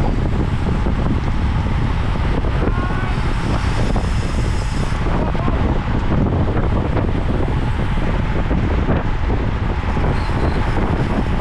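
Steady, loud wind noise buffeting the microphone of a camera mounted on a road bike riding at race speed.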